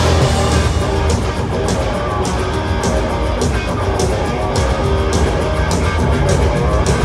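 Live rock band playing loud, heard from the crowd: an electric guitar riff over steady drums and bass, with no vocals yet.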